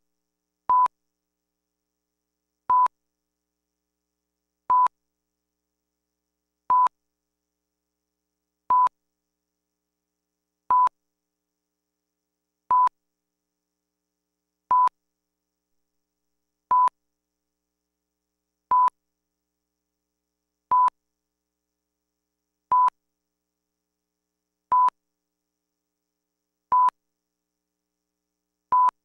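Bars-and-tone test signal: a short 1 kHz reference-tone beep every two seconds, with silence between the beeps.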